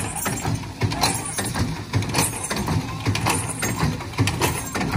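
Hand-pumper fire engine worked by a crew on its side handles, its pump knocking in a steady rhythm of about two strokes a second.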